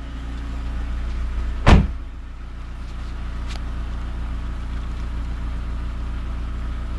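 Car engine idling steadily, with a car door slammed shut once, nearly two seconds in; the slam is the loudest sound.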